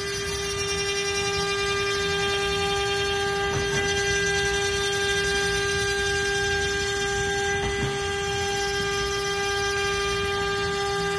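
A CNC spindle motor runs with a steady hum while its small end mill grinds down a BGA chip on a laptop motherboard.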